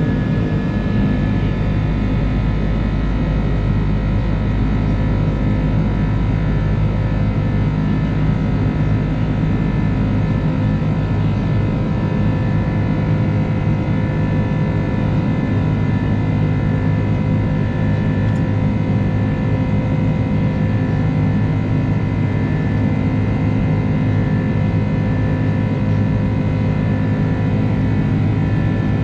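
Steady drone of an Airbus A330's twin jet engines heard inside the passenger cabin. It is a constant rumble with several steady hums layered over it.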